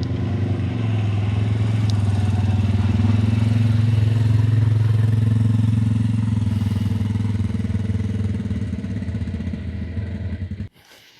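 Side-by-side UTV engine running with a steady note while driving. It grows a little louder midway and cuts off abruptly near the end.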